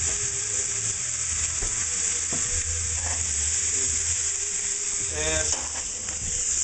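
Chicken pieces frying in butter in a pan, a steady sizzle, with a few light clicks.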